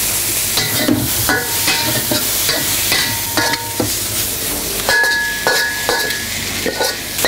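Veal strips and vegetables sizzling in a hot steel wok, with frequent sharp clinks of a metal spatula striking and scraping the wok, several of them ringing briefly.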